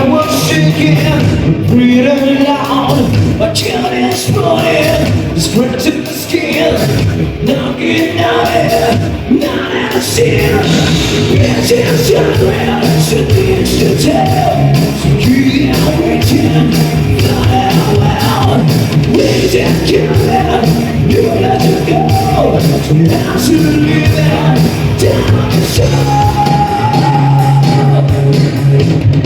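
Live hard rock band playing a song, with a singer, electric guitars and drums.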